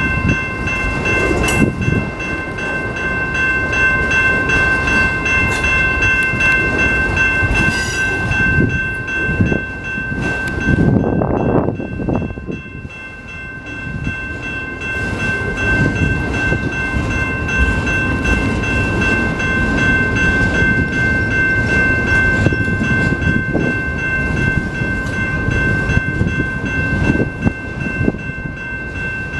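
Freight train of autorack cars rolling past: a steady rumble of wheels on the rails, with a steady high-pitched ringing tone held over it, and a short dip in the rumble about halfway through.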